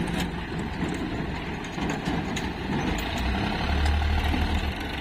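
Diesel tractor engine running as the tractor pulls an empty trailer across dirt. The engine rumble grows deeper and louder between about three and a half and nearly five seconds in.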